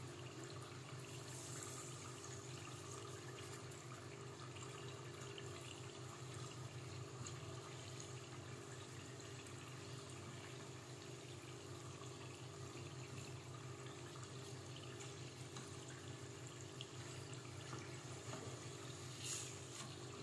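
Rice turon rolls deep-frying in hot oil in a pot: a steady sizzle, with a low steady hum underneath. A brief knock near the end.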